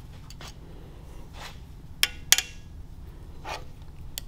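Metal hand tools being handled on a steel workbench: soft rustling and light taps, with two sharp metal clinks about a third of a second apart about halfway through, over a low steady hum.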